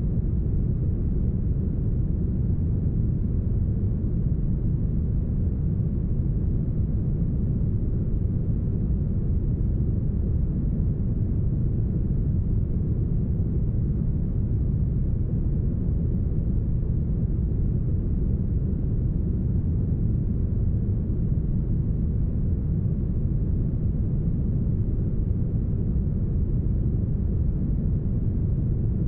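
Deep, smoothed brown noise: a steady, even low rush with the treble cut away, unchanging throughout.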